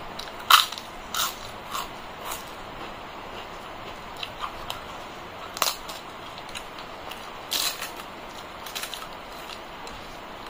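Crisp papad cracking and crunching as it is broken by hand and chewed: a series of sharp, short crunches at irregular intervals, loudest near the start and again about three quarters of the way through.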